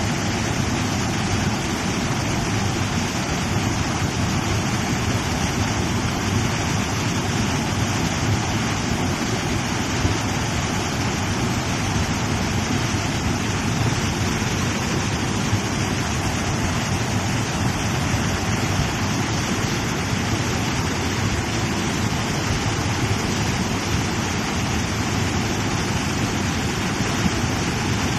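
Muddy flash-flood torrent rushing and churning around a wooden footbridge: a loud, steady rush of water.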